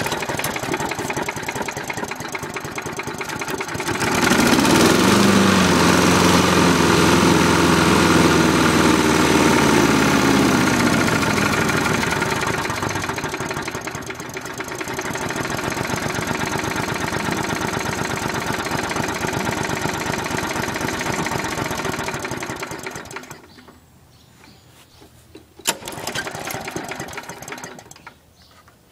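Briggs & Stratton 4hp Quantum single-cylinder lawn mower engine running at a low idle. About four seconds in its speed rises and then sinks back over several seconds, and it runs steadily until the sound falls away sharply near the end, followed by a short spiky burst.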